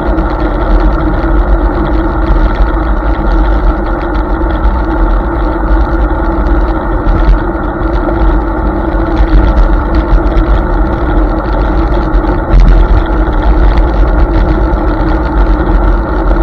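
Hiboy S2 Pro electric scooter riding along a road, with a steady rush of wind buffeting the microphone over tyre and road noise and a faint steady hum.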